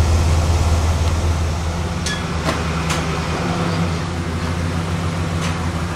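1983 Buick Electra Estate wagon's 5.0-litre V8 running steadily at idle, with a few sharp clicks in the middle and near the end.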